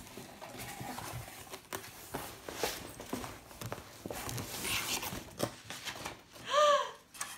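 Cardboard box flaps and packaging rustling and scraping as a parcel is opened and searched by hand, in a run of small clicks. Near the end, a child's short, loud squeal of surprise, rising and then falling in pitch.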